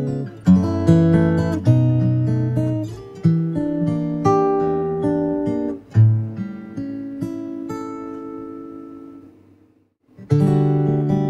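Background music: strummed acoustic guitar chords that ring and die away. The music fades to a moment of silence just before ten seconds in, then the guitar starts again.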